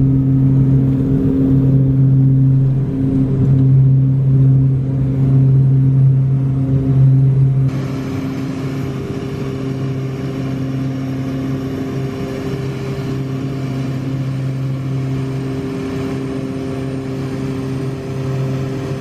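Small propeller aircraft's engine and propeller at takeoff power, heard from inside the cabin as a loud, steady drone. About eight seconds in it drops slightly in level and settles into a steady climb-out drone.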